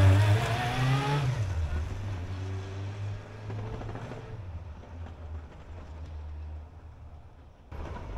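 Honda CB400 Super Four (NC31) motorcycle's inline-four engine accelerating away, rising in pitch, dropping at a gear change about a second in, then rising again more faintly as it fades into the distance.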